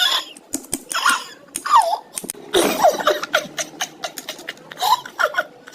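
A young child laughing and giggling in a string of short, high-pitched bursts, with gasping breaths in between.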